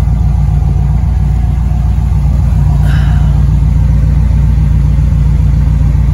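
A 1941 car's engine idling steadily, a low, even rumble heard close by.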